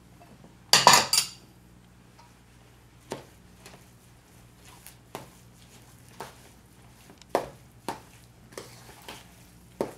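A loud clatter of dishes about a second in, then a metal spoon clinking and scraping against a stainless steel mixing bowl about once or twice a second as lump crab meat is folded into the dressing.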